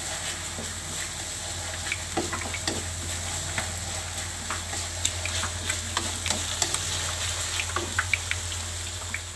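Chili-garlic spice paste and chopped shallots and garlic sizzling in hot oil in a wok, stirred with a wooden spatula, with many small crackles and scrapes throughout.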